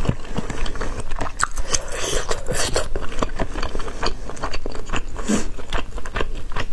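Close-miked eating: a person biting and chewing soft food, with many small wet mouth clicks and smacks.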